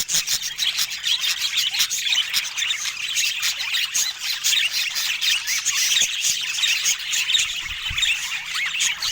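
Budgerigars chattering, a steady stream of quick, overlapping high chirps and short squawks.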